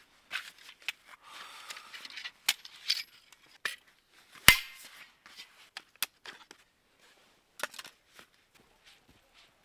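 Camping gear being handled and a folding saw being opened: scattered clicks, knocks and rustles, the loudest a sharp single click about halfway through.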